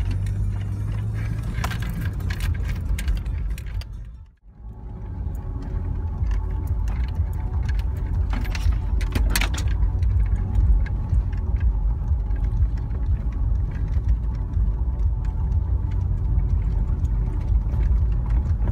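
Car on the move, heard from inside: a steady low road rumble with scattered rattles and clicks, dropping out briefly about four seconds in.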